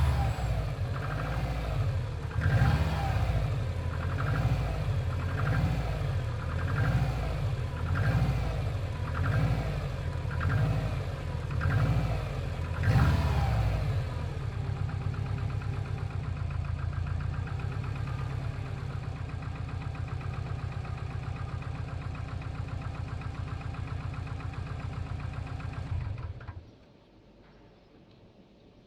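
Subaru EJ20G turbocharged flat-four engine blipped about ten times, roughly once every second and a half, then idling steadily with its knock before being switched off about 26 seconds in. The owner suspects a connecting rod knock; others put it down to forged pistons.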